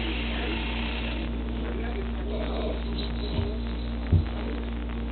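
Steady low electrical hum, with two dull low thumps about three and four seconds in, the second the louder.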